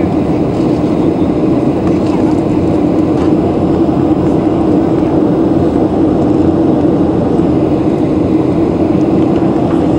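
Steady airliner cabin noise heard from inside the cabin: engine and airflow drone with a strong low hum that holds constant.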